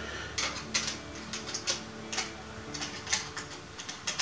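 Irregular light clicks and taps, about a dozen, from hands handling H0m model railway coaches on a test track.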